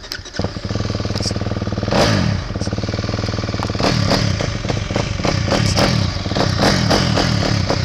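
Dirt bike engine that comes in suddenly about half a second in, runs steadily and is revved up a couple of times, around two and four seconds in.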